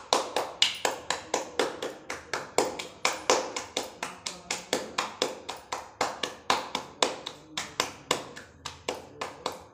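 Pearl-millet (bajra) roti dough being patted flat between the palms by hand: a steady run of soft slaps, about three a second.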